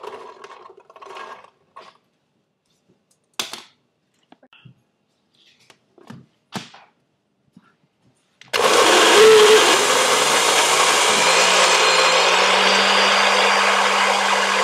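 A few soft rustles and knocks, then a little past halfway a countertop blender switches on and runs loudly and steadily, puréeing beans, its motor hum slowly rising in pitch.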